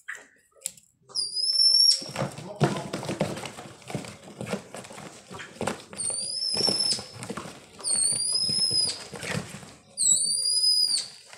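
A young bird in a cardboard box gives four high, drawn-out calls, each rising quickly and then held level. Between the calls comes the rustle and scrape of the cardboard box being handled.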